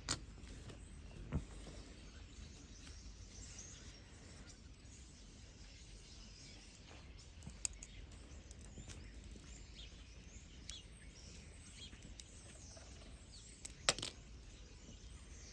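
Quiet room tone with a few sharp clicks from small phone parts and tools being handled on the bench, the loudest about 14 seconds in. Faint bird chirps in the background.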